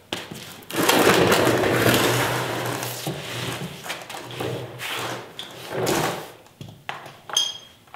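Plastic mechanic's creeper rolling and scraping over a concrete floor in several pushes as a man wheels himself under a pickup truck, followed near the end by a few clicks and a short metallic clink of tools.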